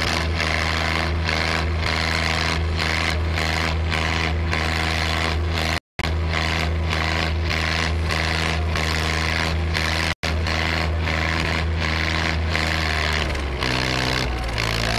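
Diesel tractor engines running hard at full load in a tractor tug-of-war: a steady, loud low drone with a regular pulsing, its note shifting near the end.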